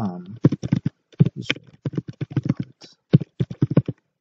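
Fast, uneven typing on a computer keyboard: a quick run of key clicks with brief pauses between bursts.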